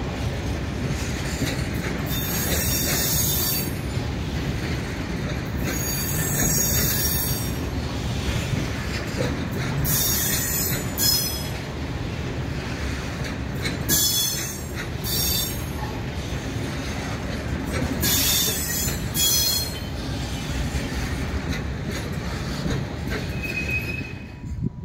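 Freight train rolling past with a steady rumble, broken by bursts of high wheel squeal about every four seconds.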